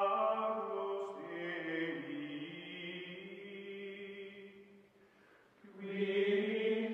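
Outro music of long held, wordless choral chords in a chant-like style. It fades almost to silence about five seconds in, then swells back near the end.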